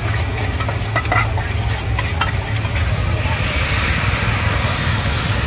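A metal utensil clicks and scrapes in a frying pan of hot oil. About three seconds in, a loud sizzle rises as ingredients go into the hot oil. A steady low rumble runs underneath.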